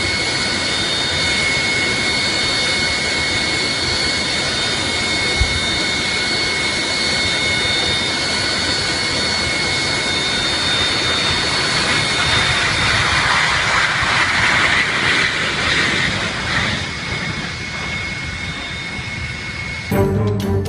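Jet aircraft engine running, a steady high-pitched turbine whine over a broad rushing noise. The rush swells about twelve seconds in and eases off a few seconds later.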